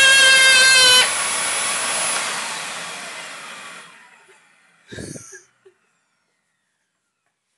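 Vacuum cleaner motor whining loudly, then switched off about a second in and spinning down, fading out over the next three seconds. A brief short sound follows about five seconds in.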